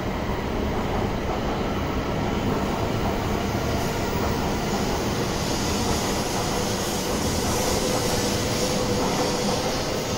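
Shinkansen bullet train moving slowly along the platform: a steady rumble with a hiss that swells through the second half, and a faint whine near the end.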